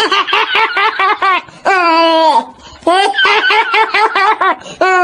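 High-pitched human laughter: quick runs of 'ha-ha-ha' alternate with long drawn-out laughs that trail down in pitch, twice over.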